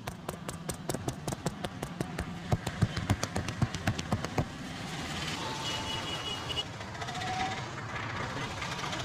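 Quick rhythmic hand slaps of a percussive head and body massage, about six a second, stopping about four and a half seconds in. Steady street noise with a few short high tones follows.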